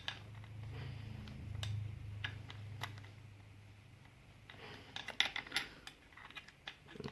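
Small metallic clicks and taps of a valve core tool tightening a new valve core into a scooter tire's valve stem, with a quick cluster of clicks about five seconds in, over a faint low hum.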